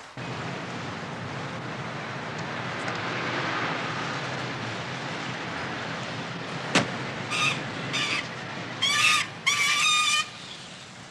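City street traffic running steadily, with a sharp click partway through. Near the end come four high-pitched toots, two short and then two longer wavering ones, the loudest sounds here.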